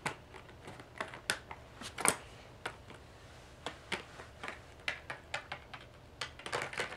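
Small plastic Littlest Pet Shop figures clicking and tapping against a plastic toy waterpark playset as they are handled, a scatter of light irregular taps.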